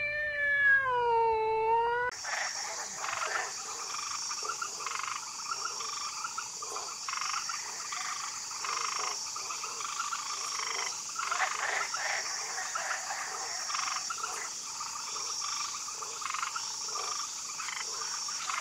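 A domestic cat gives one drawn-out meow, its pitch dipping and rising. About two seconds in it gives way to a dense chorus of calling animals: many short calls overlapping above a steady high trill that swells about once a second.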